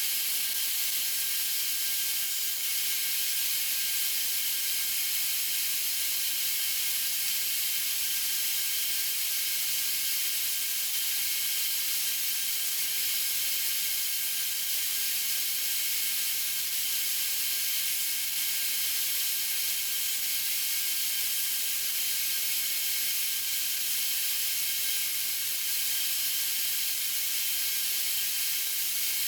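Bandsaw running steadily: a continuous high hiss with faint whining tones, even throughout with no single cut standing out.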